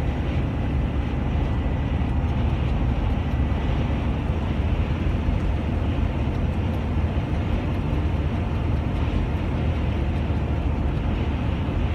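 Steady low rumble of engine and tyre noise heard from inside a vehicle's cab while it drives at highway speed.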